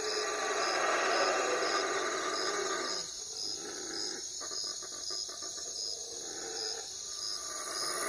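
Night forest ambience: a high, thin chirp repeating every half second or so over a steady hiss, with a rapid clicking trill from about three to seven seconds in.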